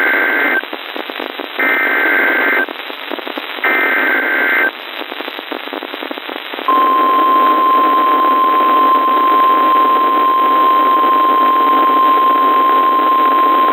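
Emergency Alert System SAME header sent over NOAA Weather Radio: three one-second bursts of screechy data tones with static hiss between them. About seven seconds in, the steady single-pitch 1050 Hz weather radio alert tone starts and holds, which signals the warning that follows.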